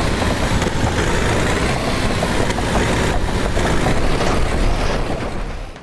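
A truck engine running with a loud, steady rumble that cuts in abruptly and falls away near the end.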